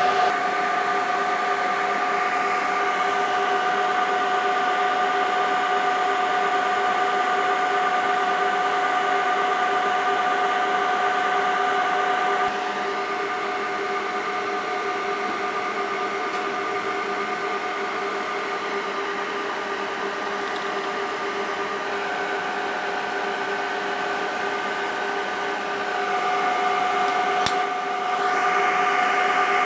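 Rack server cooling fans running steadily, a whirring hiss with a whine of several held tones. The sound drops a little about twelve seconds in and comes up again near the end, with one sharp click shortly before the end.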